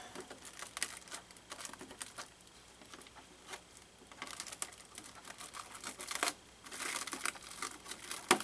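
Cellophane wrap being peeled and crinkled off a new RC car body: irregular crackling, sparse in the middle and thicker about halfway through and again near the end.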